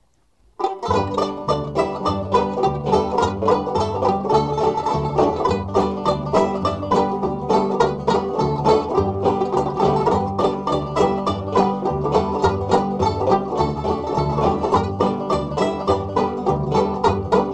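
Instrumental background music of rapidly picked plucked strings over a steady, repeating bass line, starting about half a second in.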